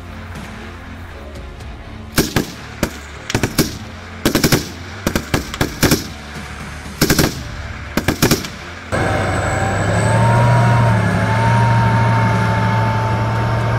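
Short bursts of automatic fire from Kalashnikov weapons (AK-74 assault rifles and a Kalashnikov machine gun), several rattling bursts over about six seconds. After an abrupt cut, a tank's engine runs loud and steady with a low drone and a high whine.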